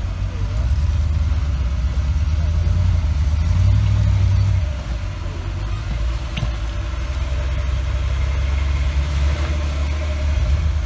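Flat-fender Willys Jeep's engine working under load while rock crawling, a low rumble rising in surges of throttle during the first half and then settling to a lower steady run. A single sharp knock sounds about six seconds in.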